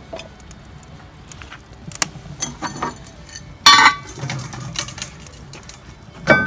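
Light metal clicks and taps, then about halfway a louder clank with a short metallic ring: cookware being handled at a kamado grill, a pot and its lid knocking together.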